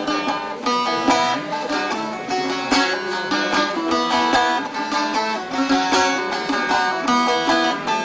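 Bağlama (long-necked saz lute) played solo, a quick, steady run of strummed and picked notes with no singing.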